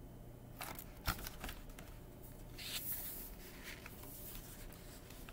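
Pages of a picture book being handled and turned: soft paper rustles and a few small clicks, with a sharper knock about a second in.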